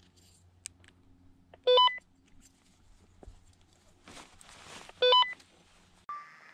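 Drone being powered up for flight: two short electronic beep sequences about three seconds apart, with a brief rustle of handling between them.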